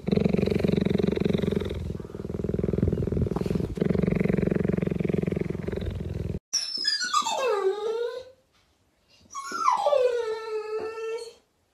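A cheetah purring: a continuous, pulsing rumble for about six seconds. Then, after a cut, a dog gives two long whines. Each falls steeply in pitch, and the second levels off and holds a steady pitch before stopping.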